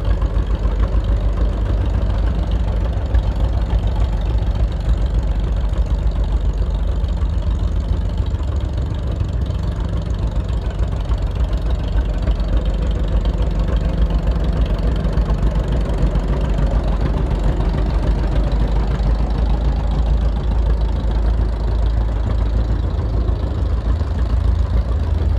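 1950 John Deere A tractor's two-cylinder engine running steadily.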